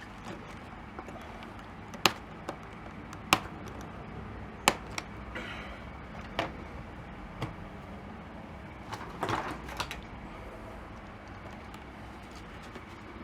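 Sharp plastic clicks and taps from handling a welding helmet's lens cartridge while working the battery out. Three distinct clicks come in the first five seconds and a quick cluster follows about nine seconds in, over a steady low hum.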